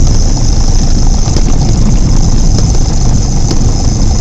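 Light aircraft's engine and propeller running steadily on the landing approach, a loud, even drone heard from inside the cockpit.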